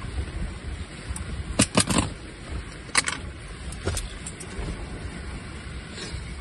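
Wind rumbling on the microphone, with a handful of short sharp crackles, a quick cluster about a second and a half in and single ones near three and four seconds.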